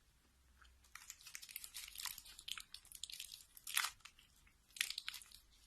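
Faint, irregular crisp crackling and crunching from a Kit Kat Chunky bar and its wrapper being handled, starting about a second in.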